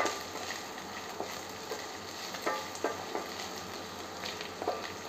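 Chopped onions and garlic sizzling in oil in a stainless steel pan, stirred with a wooden spatula that scrapes the pan a few times.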